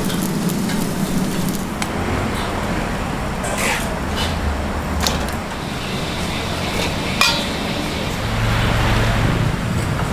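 Street-stall cooking noise: a few sharp metal clinks of cooking utensils over steady traffic noise, with a motor vehicle's low hum swelling near the end.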